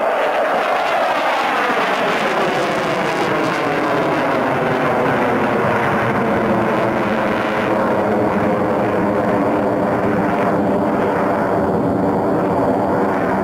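F-16 fighter's single jet engine running at high power as the jet climbs steeply: a loud, steady jet roar.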